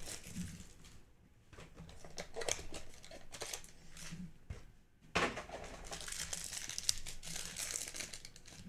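Foil trading-card pack being torn open and its wrapper crumpled in the hands, in two spells of crinkling and tearing.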